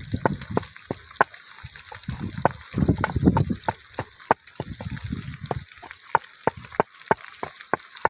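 Whole fish deep-frying in hot oil in a wok: a steady sizzle with frequent sharp pops and crackles, and some low rumbling in places.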